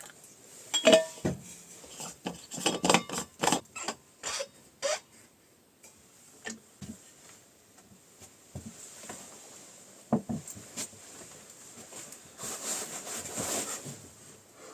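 Objects being handled: a quick run of knocks and clinks, a couple of them ringing briefly, then a few scattered taps, and about two seconds of rubbing or scraping near the end.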